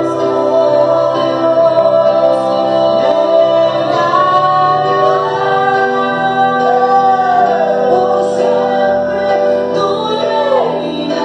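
Live church worship song: female and male voices singing over sustained keyboard chords and acoustic guitar.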